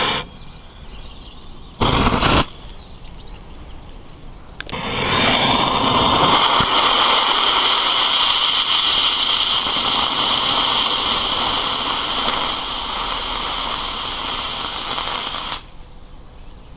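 A short fireworks fuse burning with a loud, steady hiss for about eleven seconds, spraying sparks, then cutting off suddenly as it burns out. A brief loud rush of noise comes about two seconds in, before the burn.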